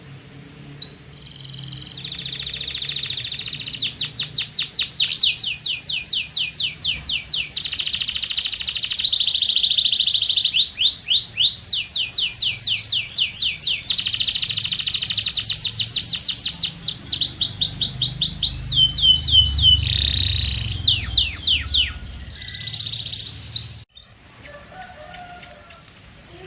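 Canary singing a long song of fast trills: runs of rapidly repeated notes, each run on a different note or pattern, switching every second or two. The song breaks off abruptly near the end.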